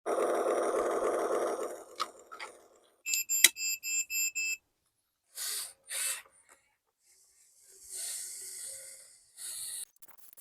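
An RC construction machine powered up on a fresh battery: a steady electric motor buzz for about two seconds, then a quick run of about eight short electronic beeps, followed by a few brief scraping noises.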